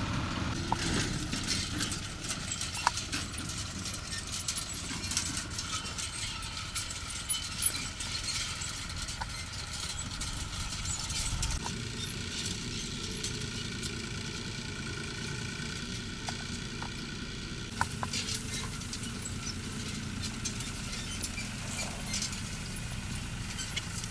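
Farm tractor engines running as they work hay machinery, a steady low rumble with scattered clicks and rattles from the rake and baler. The engine note changes about halfway through.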